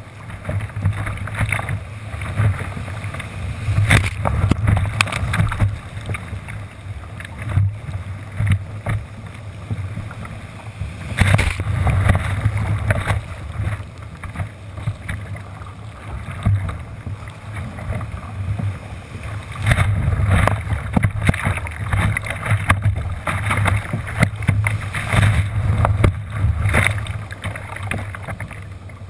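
Surf and churning whitewater rushing and splashing around a kayak riding through breaking waves, with wind rumbling on the camera microphone. Irregular louder splashes come and go.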